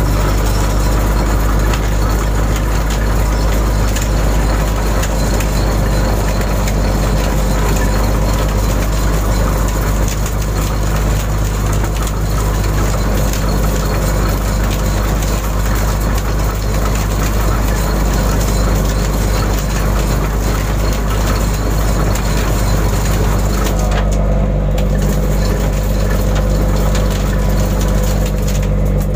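Shrimp trawler's diesel engine running steadily: a low, even drone with a constant rush of noise over it.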